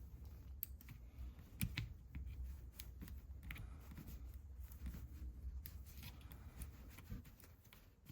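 Faint, scattered small clicks and taps of hand work on a battery pack, tools and plastic and metal parts being handled, over a low steady hum.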